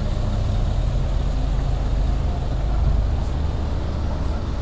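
Heavy road vehicle's engine running close by: a steady low rumble that swells a little about three seconds in.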